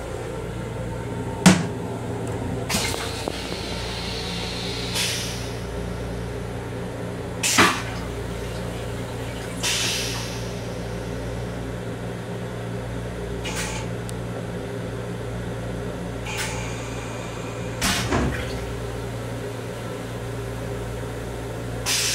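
Steady hum of a Long Island Rail Road M7 electric railcar, heard inside its small restroom. Sharp knocks and short rattles break in every few seconds, the loudest about a second and a half in and near eight seconds in.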